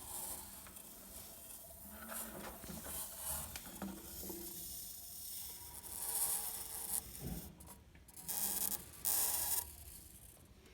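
Samsung washing machine's drive belt squeaking as it runs, in uneven bursts, loudest three times in the second half.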